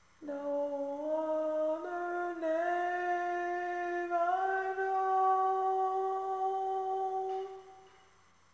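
A single unaccompanied voice humming a slow phrase, stepping up through a few notes and holding the last one for about three seconds before it fades out near the end.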